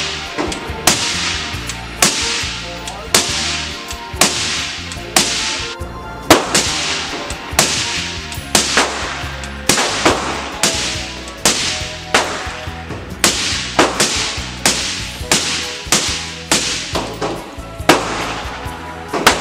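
AR-style rifle fired shot after shot, about twenty sharp reports at an irregular pace of roughly one or two a second, each ringing briefly off the hard walls of an indoor range.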